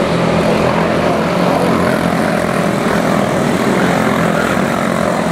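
Several quarter-midget race cars with single-cylinder Briggs & Stratton Animal engines running together at racing speed, a steady buzzing drone.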